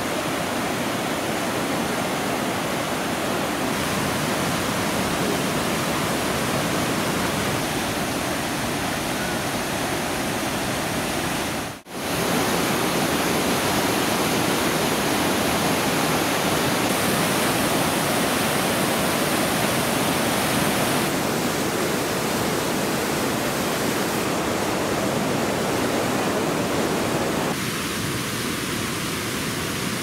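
Steady rushing of a waterfall and whitewater cascades on a mountain river in spate, broken by a brief drop-out about twelve seconds in.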